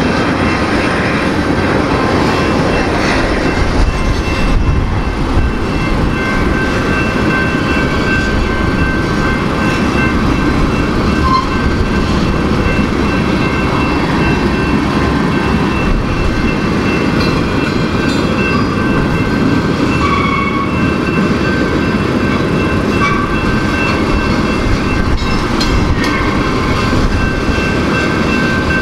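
Freight train of tank cars and covered hopper cars rolling past a grade crossing: a steady rumble and clatter of wheels on rail, with two steady high tones over it.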